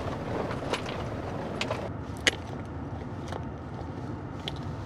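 Steady low rumble inside a taxi's cabin, with scattered light clicks and rustles of someone rummaging through a bag for a phone. The sharpest click comes a little over two seconds in.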